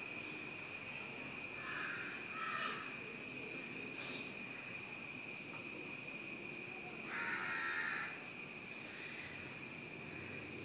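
A steady high-pitched insect drone, with a bird calling twice about two seconds in and again for about a second near the end, and a single faint click about four seconds in.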